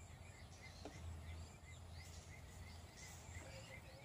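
Faint outdoor ambience: repeated short high chirps, several a second, over a low steady rumble.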